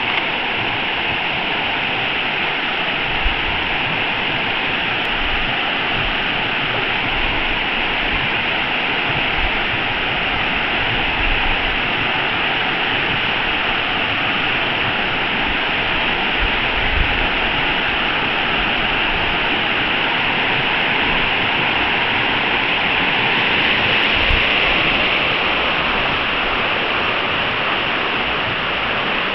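Shallow river water rushing over a rocky riffle: a steady, unbroken rush of white water.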